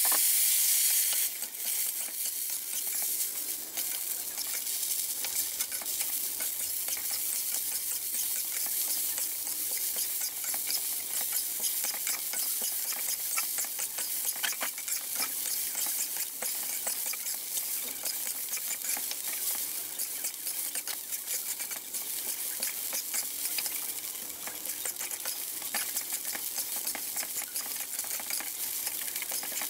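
Glutinous rice and Chinese sausage stir-frying in a steel wok: steady sizzling with frequent scraping and tapping of a metal spatula against the wok as the rice is turned. The sizzling is louder for the first second or so.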